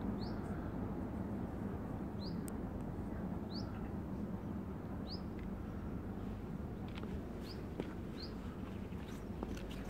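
A bird gives about six short, high, quickly rising calls, spaced irregularly, over a steady low background hum. There are faint footsteps on the gravel track ballast.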